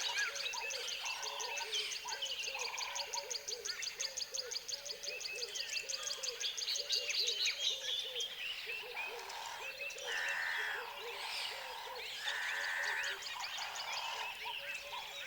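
Tropical wildlife chorus: many short calls repeating quickly, with frogs and birds calling over one another. A fast, high, pulsing trill runs through the first half and stops about halfway. Several longer, held calls come in the second half.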